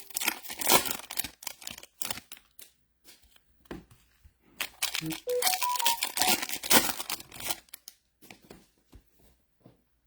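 Plastic and foil trading-card packaging for 2025 Bowman Chrome baseball being torn open and crinkled by hand, in two bouts with a pause between them.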